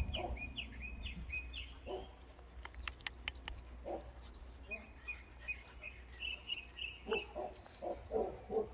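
Two runs of short high chirps, one at the start and one midway, then a few soft, low dog noises close to the microphone near the end as a Jindo dog comes right up to it.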